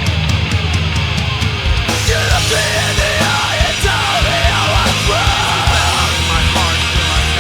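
Loud punk rock: distorted guitars, bass and driving drums, with shouted vocals coming in about two seconds in.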